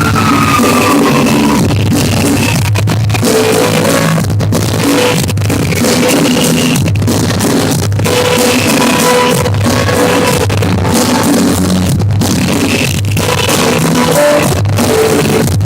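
Rock music with guitar and drum kit played at a steady beat, loud and dense throughout.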